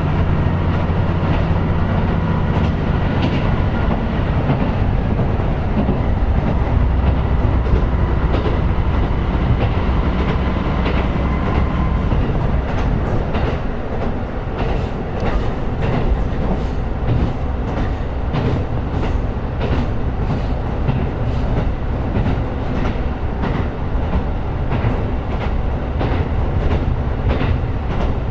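KiHa 125 diesel railcar running along the line: a steady engine drone and wheel rumble, the engine heavier in the first half. About halfway through, a rhythm of wheels clicking over rail joints takes over.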